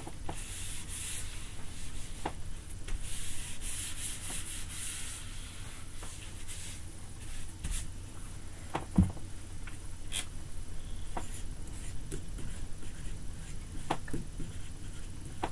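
Whiteboard eraser rubbing across the board in repeated strokes, then a dry-erase marker scratching and tapping as it writes on the whiteboard near the end. A single knock about nine seconds in is the loudest sound.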